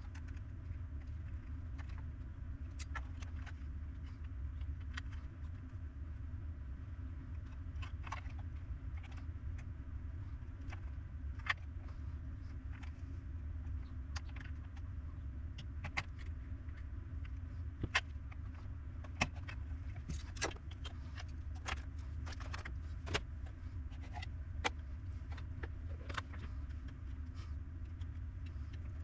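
Scattered small clicks and taps of tools and parts being handled during a repair, over a steady low hum.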